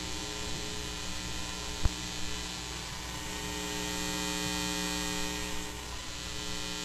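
Electromagnetic interference picked up by a homemade pegboard loop antenna and played through an audio recorder: a steady electrical mains hum with a stack of overtones over a hiss. The hiss swells midway and eases again as the antenna is tilted and moved. There is a single click about two seconds in.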